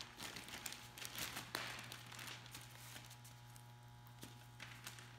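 Faint crinkling and rustling of plastic sheeting and packer fabric being handled, busiest in the first two seconds, over a steady low hum.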